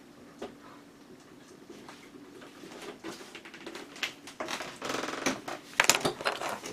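Small plastic model-kit parts being handled: scattered light clicks and taps, getting busier after about four seconds with a quick run of crackling.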